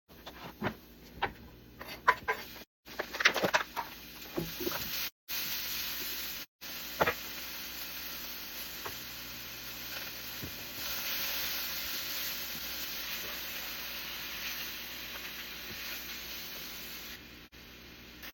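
A few sharp knocks and clicks, like utensils and cookware being handled, then food frying with a steady sizzle through most of the second half.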